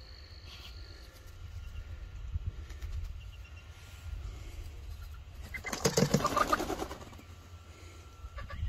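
A young chicken flapping her wings in a quick burst of beats for about a second, over a low background rumble.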